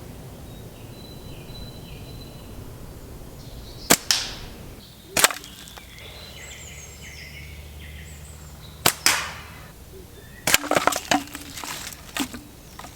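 Hathcock Target Sniper slingshot shooting: two sharp snaps, about four and nine seconds in, each followed by a short rush, and another crack about five seconds in. A quick run of clattering knocks follows near the end, over faint bird chirps.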